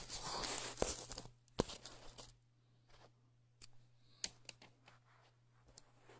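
A few sharp clicks and knocks with about a second of rustling at the start, then scattered faint ticks. These come from test-firing a homemade capacitor-driven electromagnet coil that flings a small screwdriver.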